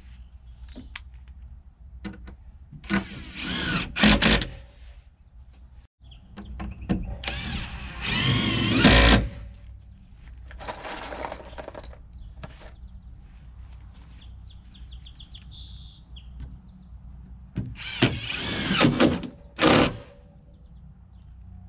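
Power drill driving screws into wooden siding boards, in four or five bursts of one to two seconds each, the motor's whine wavering as each screw goes in.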